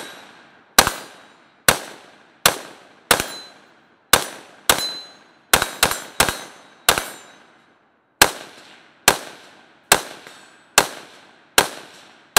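Galil ACE 5.56 rifle with a 16-inch barrel firing a string of about fifteen shots at a steady pace of roughly one shot a second, with a quicker run of three near the middle. Each shot trails off in a short echo.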